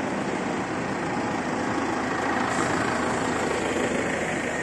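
Steady drone of a diesel engine running in a large workshop hall.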